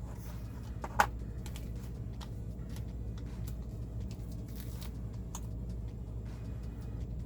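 Small clicks and taps of LEGO plastic pieces being handled while a sticker is pressed on, the sharpest about a second in, over a low steady hum.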